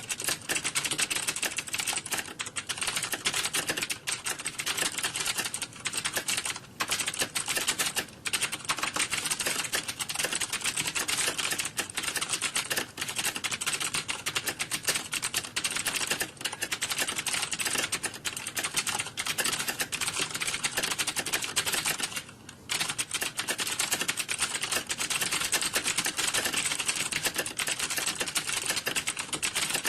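Computer keyboard typing: a rapid, continuous clatter of keystrokes with one brief pause about 22 seconds in.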